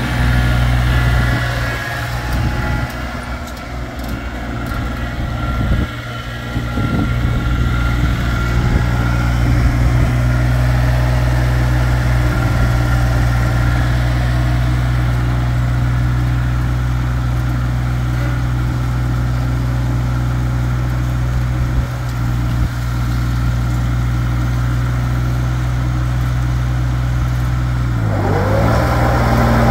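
2004 Case DX24E compact tractor's diesel engine running steadily as the tractor drives. About two seconds before the end the engine speed drops briefly, then comes back up a little higher.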